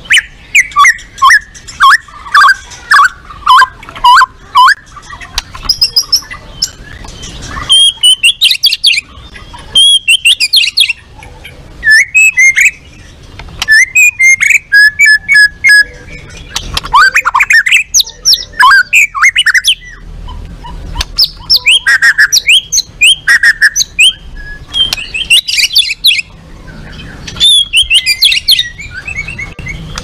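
White-rumped shama singing loudly in rapid phrases of quick, sharp notes and chattering trills, each phrase a second or two long with short pauses between.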